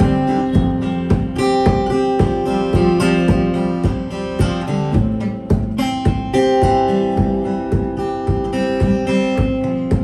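JiaZhuo cutaway acoustic guitar played with the fingers: chords picked out in a steady run of plucked notes, several a second, ringing on over one another as the chords change.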